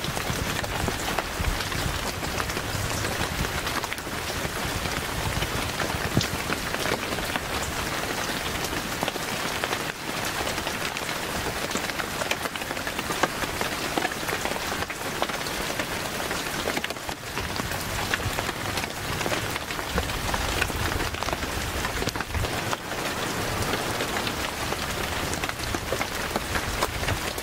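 Steady rain pattering: a dense hiss made of countless small drop-ticks.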